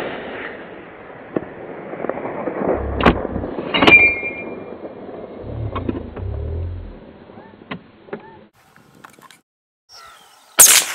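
The echo of a 7mm-08 rifle shot dies away over the hills, followed by a few sharp clicks and low thumps as the rifle is handled. Near the end a second rifle shot cracks out.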